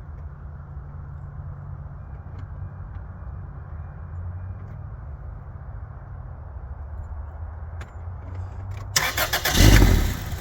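2002 Toyota Corolla 1.8-liter four-cylinder engine started without the gas pedal, running low and steady for several seconds, with a much louder burst near the end. It will not idle properly, the sign of a suspected vacuum leak.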